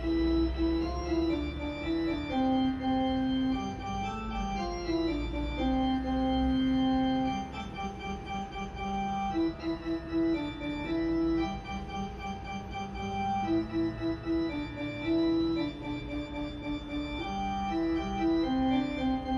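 Background music: a melody of long held notes over a steady low bass.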